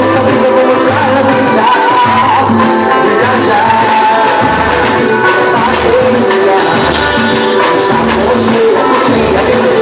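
A pagode band playing live, with a singing voice over hand percussion and a moving bass line.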